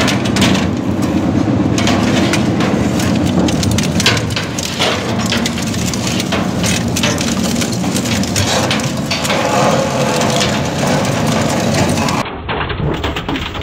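Twin-shaft metal shredder's cutter discs tearing and crushing a painted sheet-metal panel: dense, irregular crunching and cracking over a steady low grinding. It drops abruptly to a lighter crackle near the end.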